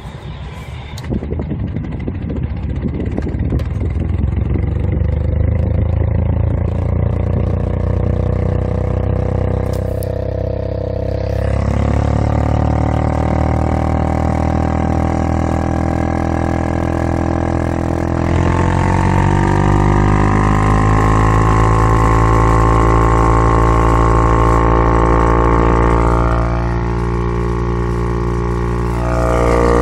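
Car ventilation blower fan running with a loud, turbine-like droning whine. Its pitch rises as it spins up over the first few seconds, then steps higher twice.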